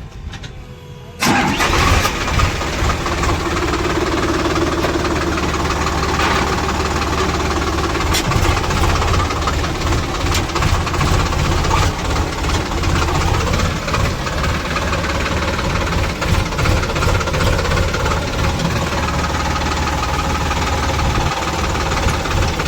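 Heavy diesel engine, a tractor's or a backhoe loader's, running steadily. It comes in abruptly about a second in.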